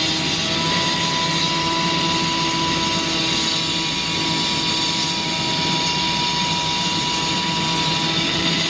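Heavy diesel machinery of an asphalt-paving crew running steadily, with a constant high whine above the engine noise that stops near the end.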